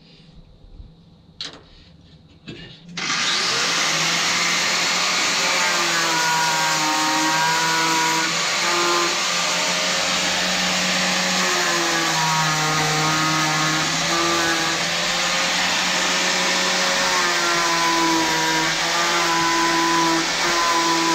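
A handheld electric power tool starts about three seconds in and runs continuously, its motor pitch dipping and recovering as it works under load. A few light knocks come before it.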